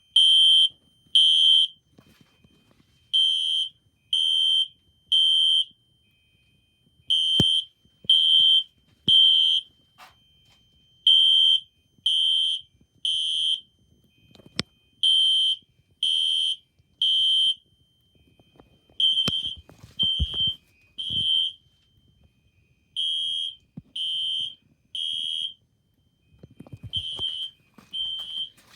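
Fire alarm sounding a high-pitched beep in groups of three, a group about every four seconds: the temporal-3 evacuation pattern.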